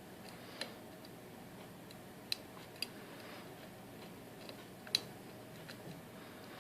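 Scattered sharp clicks from the pins of an Assa Guideline lock being picked, coming at irregular intervals, with the loudest about five seconds in.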